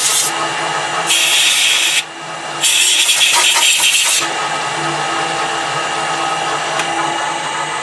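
Metal lathe running with a steady hum, broken by three bursts of harsh high-pitched noise, the longest about a second and a half, near the start and in the first half.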